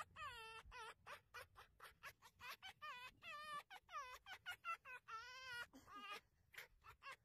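Red fox making rapid, high-pitched chattering calls, short yelps several a second with a longer whining call about five seconds in: the playful cackling of a fox being hand-wrestled.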